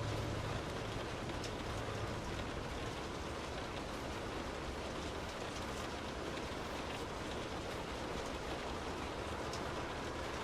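Steady rain heard from indoors: an even hiss with scattered sharper drop ticks. A low rumble fades out in the first second or so.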